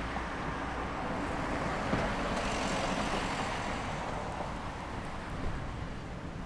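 Road traffic going past on a street, one vehicle's tyre and engine noise swelling and fading around the middle.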